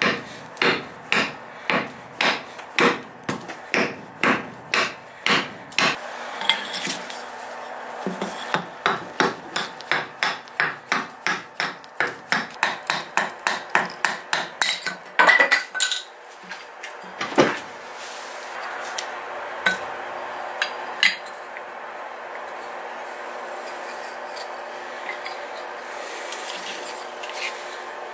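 Hatchet chopping and shaving a buckthorn knife-handle blank held against a wooden chopping block: quick, regular strikes, about two a second, then speeding up to about three a second. Past the middle come a few separate, louder blows.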